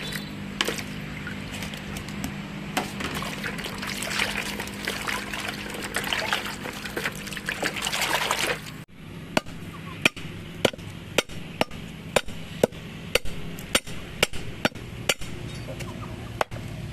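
Water splashing and trickling for about nine seconds, then after a sudden cut a knife chopping on a cutting board, sharp even strokes about two a second.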